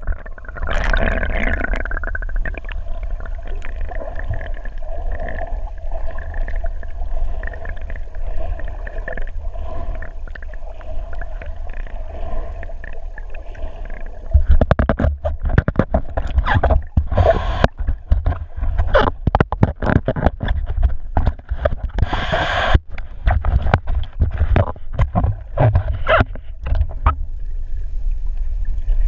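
Muffled underwater sound from a camera submerged in the sea: a steady low rumble of moving water with a faint hum. From about halfway, frequent bursts of bubbling and knocks.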